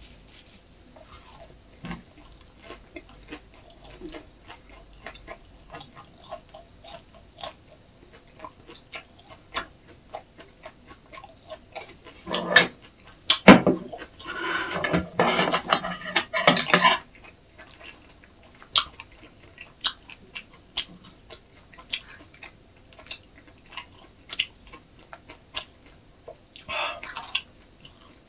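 Close-up eating sounds: chewing a lettuce and perilla-leaf wrap of pork belly, with many small mouth clicks, and taps of dishes and plastic takeout containers. A louder, busier stretch of handling noise comes about halfway through, and a short one near the end.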